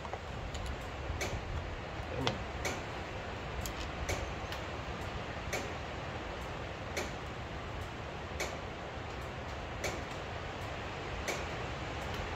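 Sharp ticks repeating at a very even pace, about one every second and a half, over a steady low background noise.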